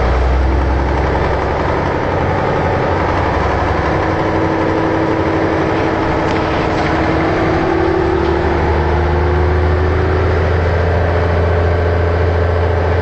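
Leyland Titan double-decker bus's diesel engine running steadily, with a deep hum under a faint whine that rises slowly in pitch from about four seconds in.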